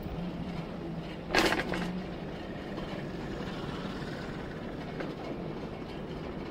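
City street traffic noise, a steady hum, with one short loud rush of hiss about a second and a half in.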